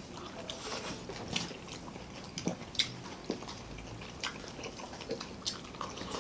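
People chewing and biting food close to the microphone, with irregular small crunches and mouth clicks.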